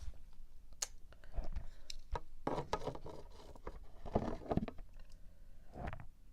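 Scattered light clicks and short rustling: handling noise close to the microphone.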